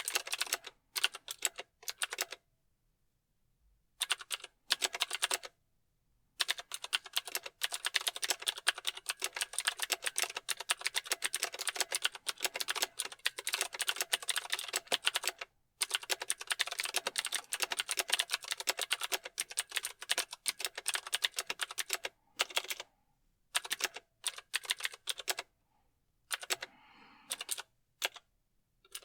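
Typing on a mechanical keyboard: fast runs of sharp key clicks, broken by short pauses, the longest about two seconds in.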